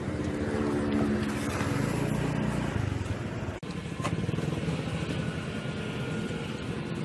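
Motor vehicle engine running steadily, with a brief dropout about three and a half seconds in.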